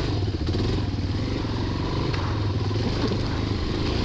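Yamaha XT350's single-cylinder four-stroke engine running steadily as the trail bike rides along a dirt track, with a few light knocks over the rough ground.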